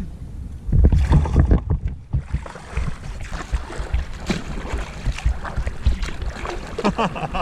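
Wind on the microphone with water slapping and knocking against the hull of a Stealth ProFisha 575 fishing kayak, in irregular small knocks and splashes, heaviest about a second in.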